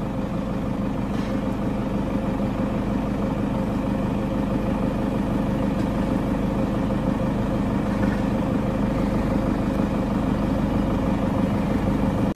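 An engine idling with a steady, unchanging hum, cut off abruptly at the end.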